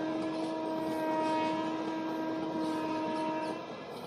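Train horn sounding one long, steady blast of about three and a half seconds, over the rumble of a long passenger train running past on the track.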